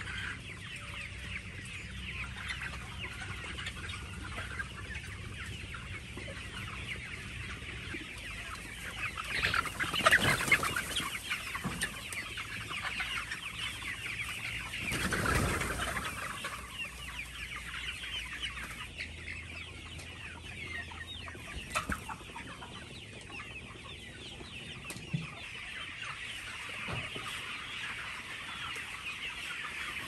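A large flock of young chickens peeping and cheeping together in a dense, continuous chorus, with two louder noisy swells about a third of the way through and about halfway.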